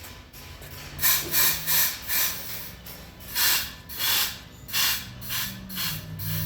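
Tire changing machine at work: about a dozen short, irregular bursts of hissing over a low steady hum.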